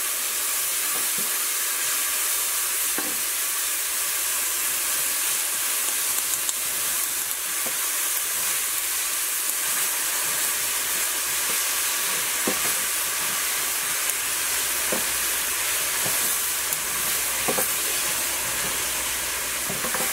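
A butter-and-flour roux sizzling steadily in a hot nonstick frying pan as chicken stock is added a little at a time and stirred in with a wooden spoon. A few faint taps of the spoon on the pan are heard.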